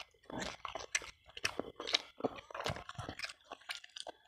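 Close-miked chewing of soft braised chicken: wet mouth clicks and smacks, several a second in an irregular rhythm.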